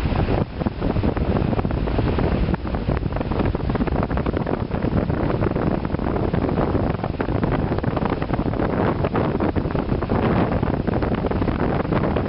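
Strong wind buffeting the microphone over the rushing noise of heavy storm waves breaking on the shore.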